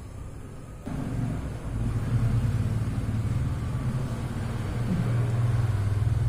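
A steady low mechanical hum and rumble that starts abruptly about a second in and grows slightly louder.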